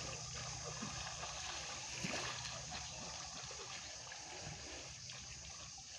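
Shallow pond water sloshing and splashing around men wading through it as they haul a fishing net.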